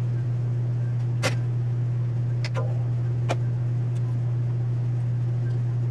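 Steady low electrical hum, with four scattered sharp light clicks and taps as a hookup wire is handled on a circuit board.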